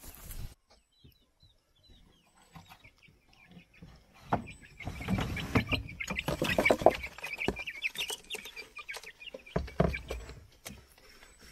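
Chickens clucking, with rustling and a few knocks among them, busiest in the middle.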